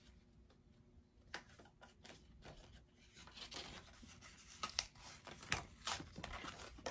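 Paper rustling with short crackles of backing being peeled off double-sided tape, scattered and light at first, then busier and louder in the second half.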